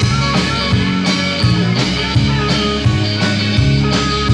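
Small live band playing an instrumental passage: bass guitar, acoustic and hollow-body electric guitars over a drum kit keeping a steady beat.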